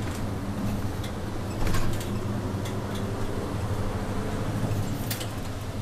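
Inside a city route bus on the move: the engine's steady low hum with tyre noise from the wet road, and a few scattered clicks and rattles from the cabin fittings.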